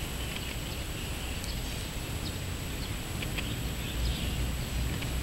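Open-air ambience: a steady low rumble of wind on the microphone, with faint short bird chirps now and then.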